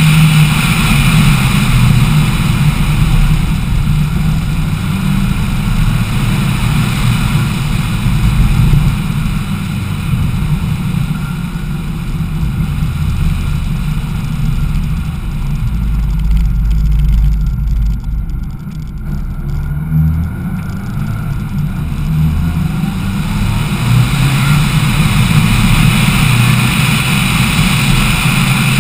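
Lancia Delta Integrale rally car's turbocharged four-cylinder engine running under way, with road noise, heard from a camera mounted on the outside of the car. The level holds fairly steady, easing off briefly past the middle.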